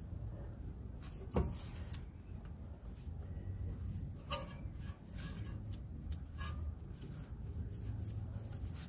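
Gloved hands handling a greased CV joint and its rubber gaiter on a car driveshaft: faint rubbing and light knocks, with one sharp click about a second and a half in, over a low steady rumble.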